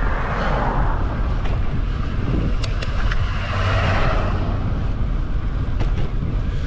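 Steady wind buffeting the microphone and tyre noise while riding along a road after a snowstorm, with a couple of louder swells of hiss and a few light clicks.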